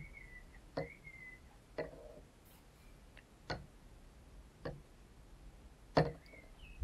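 Five sharp taps, irregularly spaced roughly a second apart, the last the loudest, with faint high warbling chirps in between.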